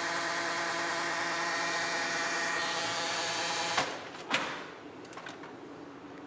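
Ricoh colour photocopier running with a steady, humming mechanical whine, the abnormal noise that the uploader traces to a jammed developer unit. Almost 4 seconds in it stops, followed by two sharp clicks about half a second apart.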